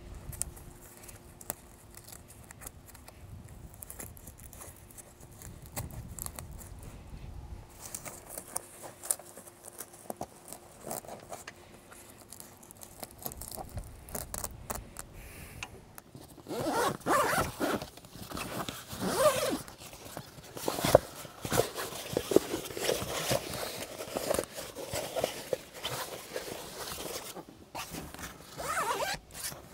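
Faint scattered clicks and handling noise, then from a little past halfway a zipper pulled again and again in a run of quick strokes, with a last short pull near the end.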